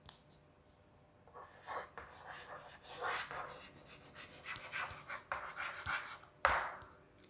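Chalk scratching on a blackboard as lines are drawn, a series of strokes starting about a second in, with a sharp tap near the end.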